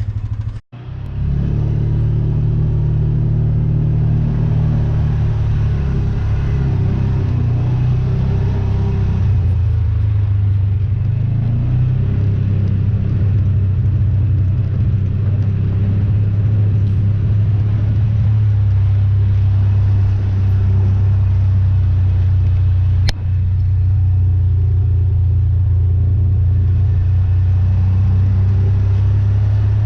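Tractor engine running steadily with a low, even drone. It cuts out briefly just under a second in, and there is a single sharp click about 23 seconds in.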